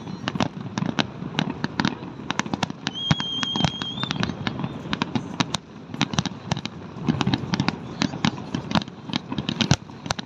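Fireworks display: a dense, rapid stream of sharp cracks and pops from bursting shells over a low rumble. About three seconds in, a thin wavering whistle sounds for about a second and rises slightly at its end.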